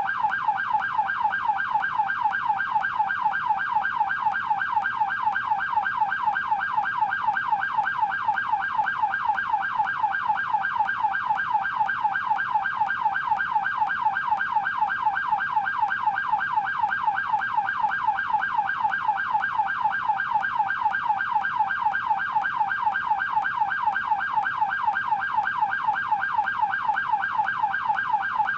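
Electronic police car siren in yelp mode: a fast, continuous up-and-down wail repeating without a break at a steady level.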